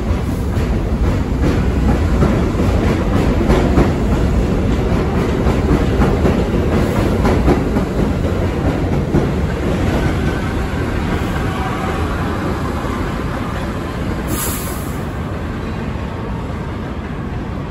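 R62A subway cars of a (1) train running on the elevated track at 125 St, the wheels clacking over the rail joints under a heavy rumble, the noise easing off over the second half. A faint wheel squeal comes in the middle, and a short hiss comes near the end.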